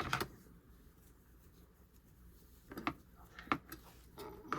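A few scattered light clicks and taps from craft materials being handled: a couple right at the start, a small cluster about three seconds in, and one more near the end.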